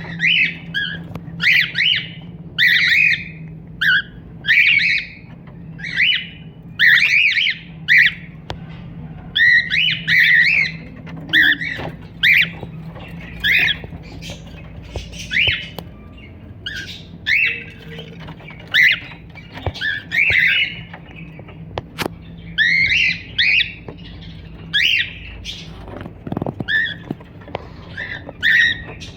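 Cockatiel calling in short, repeated chirps and squawks, roughly one a second with brief pauses, over a steady low hum.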